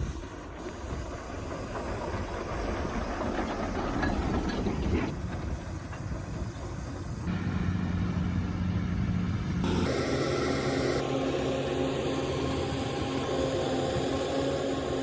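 Kobelco excavator's diesel engine running, a steady mechanical rumble. The sound changes abruptly a little over seven seconds in and again about ten seconds in, the last part holding a steady engine drone.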